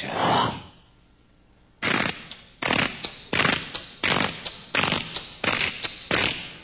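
A man making vocal percussion into a microphone, a beatbox-style drum beat: a breathy burst at the start, then about two seconds in a rhythmic run of sharp, noisy mouth beats, about three a second, stopping near the end.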